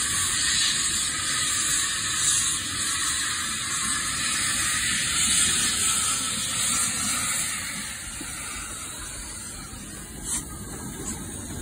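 Simulated steam hiss from an OO gauge model of an LMS Crab steam locomotive as it moves off, a steady wavering hiss of escaping steam that eases off about eight seconds in, with a couple of faint clicks near the end.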